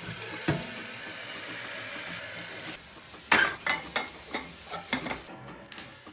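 Tap water running into an enamel kettle in the sink, getting a little louder as it fills, then shutting off a little under three seconds in. After that come a string of sharp knocks and clicks as the kettle is handled and set on the gas stove's grate.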